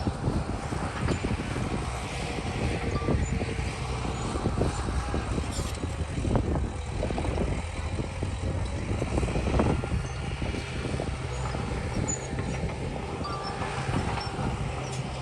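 Diesel engine of heavy earthmoving machinery running steadily, with scattered clanks and knocks, most of them in the middle stretch.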